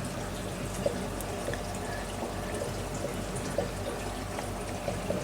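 Aquarium water trickling and bubbling steadily over a steady low hum, with a few faint drips.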